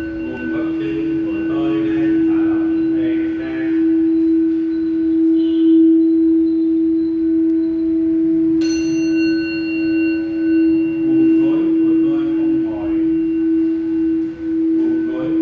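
Tibetan singing bowl ringing with one steady low tone, its loudness wavering in slow pulses. About halfway through a fresh strike brings back its higher ringing overtones.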